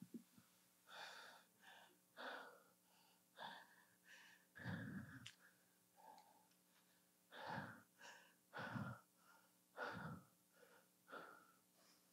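Very faint, breathy voice speaking softly in short phrases, far below the level of the sermon, over a faint steady hum.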